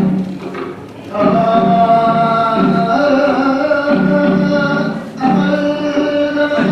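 Voices singing a Japanese folk song for a mochi-pounding dance in long held notes, in phrases with short breaks about a second in and about five seconds in.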